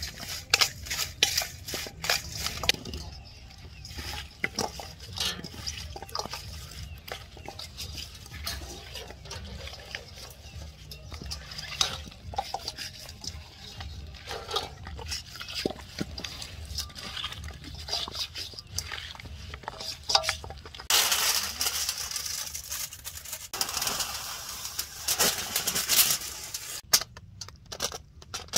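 A spoon clinks and scrapes against a stainless steel bowl, and hands squish through a wet herb marinade as a whole fish is rubbed with it. The sound is a run of scattered sharp ticks with wet squishing, and two longer rustling stretches come near the end.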